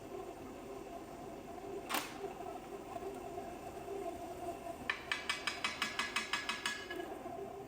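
A single sharp metallic click, then a ratchet wrench clicking rapidly and evenly for about two seconds near the end, while the governor is being unbolted from the engine. A steady hum from the shop heater runs underneath.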